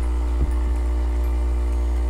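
Nescafé Dolce Gusto Mini Me capsule coffee machine running its hot-water rinse cycle: its vibratory pump hums steadily while hot water pours into a mug.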